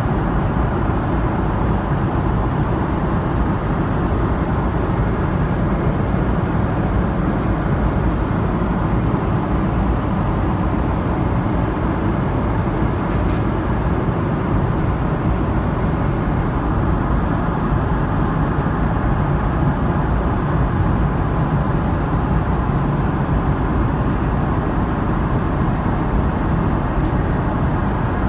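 Steady cabin noise of a Boeing 777-300ER in cruise: an even rumble of airflow and engines, strongest in the low end and unchanging throughout.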